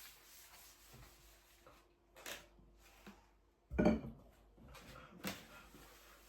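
Kitchen cleaning handling sounds: items being moved and set down on a worktop, with a few short knocks and the loudest clunk about four seconds in.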